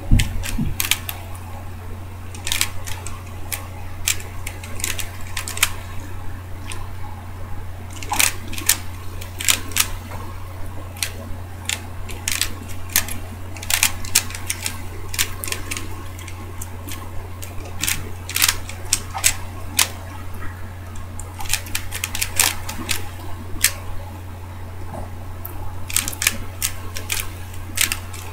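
DaYan ZhanChi 3x3 speed cube being turned fast in a speed solve: irregular runs of sharp plastic clicks and clacks as the layers are turned and snap into line.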